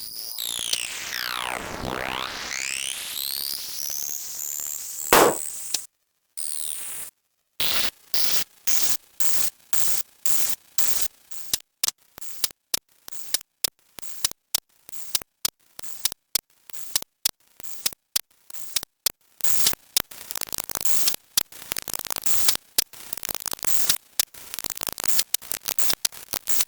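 Electronic cartoon sound effects: swooping whistle-like glides falling and rising, a sharp hit about five seconds in, then choppy bursts of static cutting rapidly on and off.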